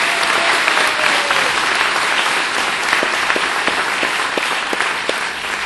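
Audience applauding steadily, with a few louder single claps close by standing out in the second half.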